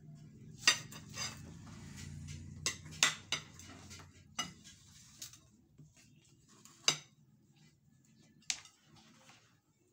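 A metal spoon clinking and tapping against ceramic plates and bowls as food is served: about nine sharp clinks, the loudest about two thirds of a second in and about seven seconds in. A low hum runs under the first four or so seconds.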